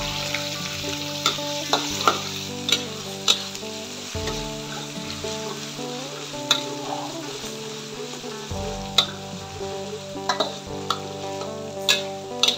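Chopped spices sizzling in hot oil in a metal wok and being stirred with a metal spatula, with sharp clinks of the spatula against the wok every second or two. The sizzle is strongest in the first few seconds and then eases off.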